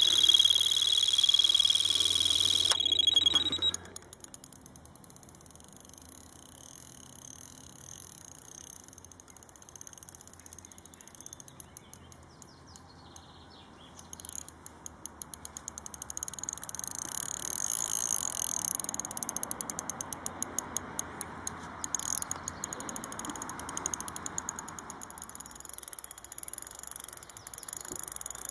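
Electronic carp bite alarm sounding one continuous high tone for about four seconds as a carp runs with the bait, then cutting off. After a quieter stretch, rapid clicking from the spinning reel as the hooked carp is played.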